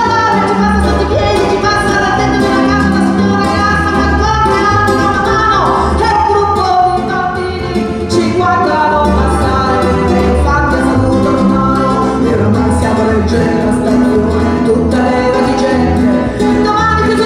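A woman singing a folk ballad in a strong, full voice, accompanied by accordion, double bass and guitar, with a walking bass line underneath.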